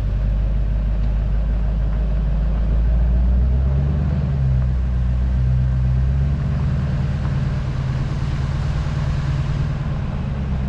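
A motor vehicle driving, with a steady low engine and road hum. The engine note changes about four seconds in.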